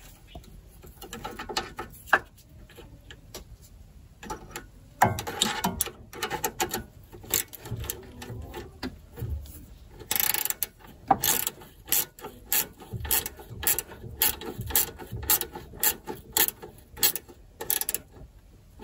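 Ratchet wrench clicking as a nut is tightened: scattered clicks at first, then quick runs of clicks from about halfway through.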